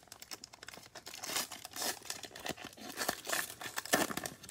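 A trading card pack's wrapper being torn open and crinkled as it is peeled off the stack of cards: a run of irregular crackles, the loudest about four seconds in.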